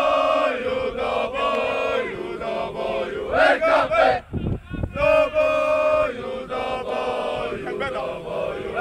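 A small group of young male football supporters chanting in unison, holding long sung notes, with a brief break a little before halfway through.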